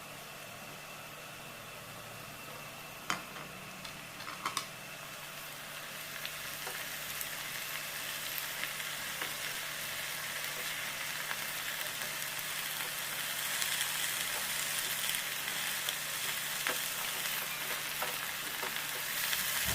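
Amaranth leaves and pumpkin pieces sizzling in ghee in a pan, the sizzle growing steadily louder, with a few sharp clicks of the stirring spoon against the pan about three and four seconds in.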